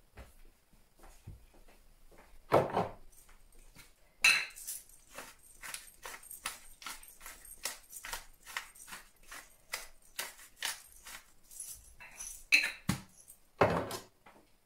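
Hand-twisted spice mill grinding seasoning, a steady run of short dry clicks at about three a second lasting several seconds, with a few louder knocks of the mill being picked up and set down on the counter.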